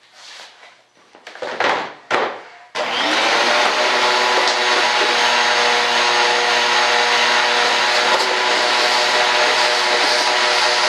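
A few short handling knocks and rustles, then about three seconds in an electric motor switches on and runs at a steady, even speed with a constant whir.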